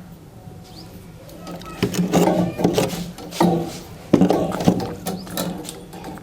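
Hand tools cutting and working the fridge freezer's copper capillary tube: a string of irregular metallic clicks and scrapes starting about two seconds in, over a faint steady low hum.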